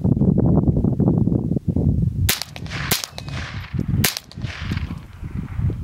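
A low rumbling noise for about two seconds, then three gunshots from a shooter working through a timed drill, the second quickly after the first, each with a trailing echo.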